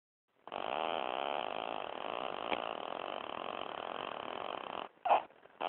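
A newborn baby girl snoring: one long continuous snore that stops a little before five seconds in, followed by a brief louder sound near the end.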